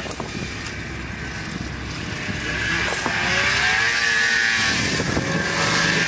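Snowmobile engine running, getting louder about halfway through, its pitch rising and falling.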